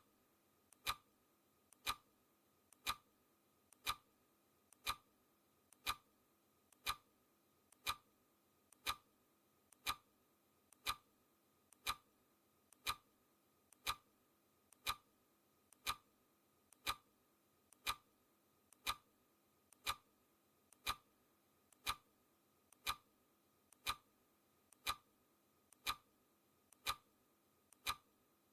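Clock-style ticking sound effect, one sharp tick a second at a perfectly even pace, each tick led closely by a fainter click.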